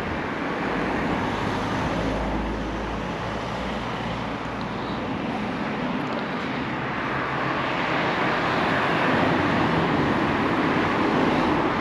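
Outdoor road traffic noise: a steady rush from vehicles passing along the street, building somewhat toward the end.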